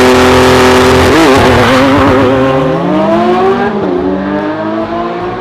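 Loud car engine sound, running steadily, then revving up in pitch and dropping back about three and a half seconds in before fading out.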